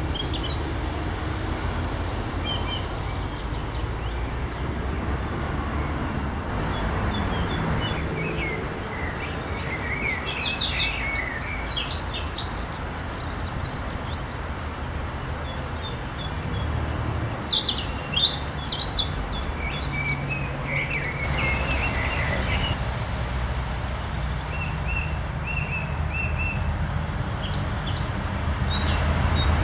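Several songbirds singing and calling at once in a spring dawn-chorus style, short chirps and trills overlapping, over a steady low background rumble.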